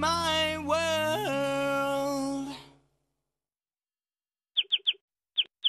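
A song's sung vocal with backing music fades out about two and a half seconds in. After a short silence come five quick, high, bird-like chirps: three in a fast run, then two more.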